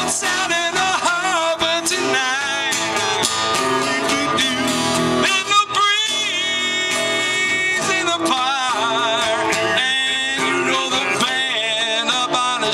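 Live band playing the closing part of a blues guitar solo, the lead guitar holding notes that bend and waver over the band.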